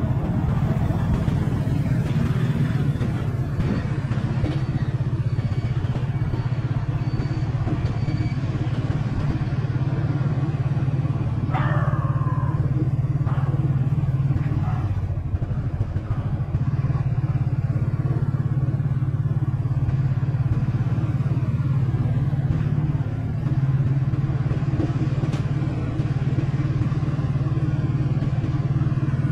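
Small motorcycle engine running steadily at an even road speed as it is ridden along.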